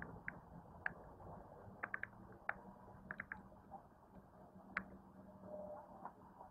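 Faint marina ambience: scattered light clicks and knocks, some in quick runs of two or three, over a low steady hum.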